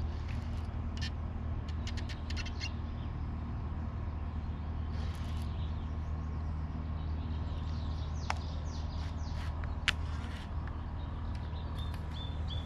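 Small birds chirping on and off over a steady low rumble, with two sharp clicks a little past the middle.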